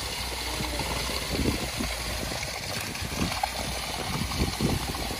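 Concrete pump running steadily with a low engine hum, pushing concrete through its delivery hose during a footing pour, with a few brief louder thuds.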